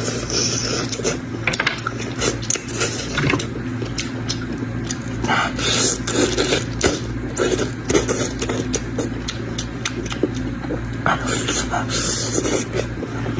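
Close-miked eating of meat: chewing and lip-smacking, with many sharp wet clicks and short noisy bursts throughout, over a steady low hum.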